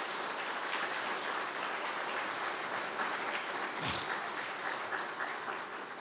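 Audience applauding, steady and then thinning out near the end.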